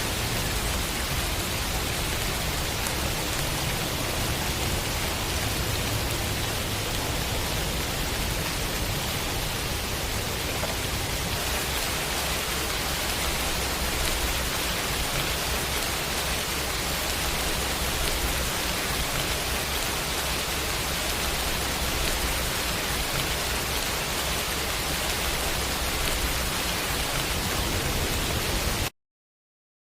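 Heavy rain falling steadily, a dense even hiss with a low rumble underneath, which cuts off suddenly near the end.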